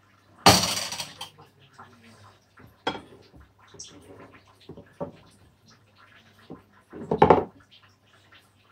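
Light tableware handling: scattered clicks and scrapes of a spoon against a bowl, with a louder noisy rustle about half a second in and another near the end.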